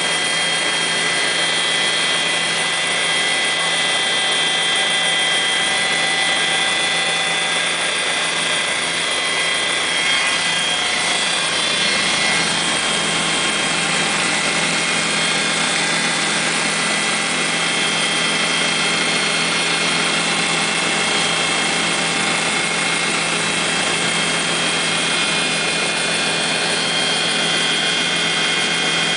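Helicopter engine and rotor running steadily, heard from inside the cabin, with a constant high whine over a dense rushing noise.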